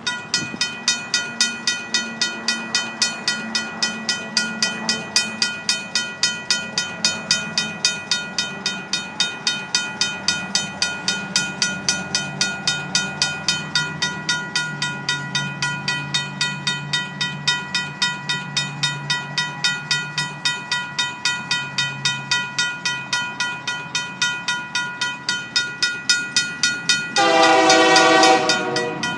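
Railroad crossing signal's RACO mechanical bell ringing rapidly, several strokes a second. About two seconds before the end, the approaching Union Pacific locomotive sounds its multi-note horn for about two seconds, the loudest sound.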